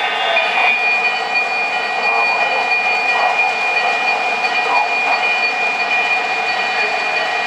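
Onboard sound systems of MTH O-gauge model diesel locomotives playing idling diesel engine sounds through their small speakers, joined by a freight train rolling along three-rail track, with a steady high-pitched whine that starts about half a second in.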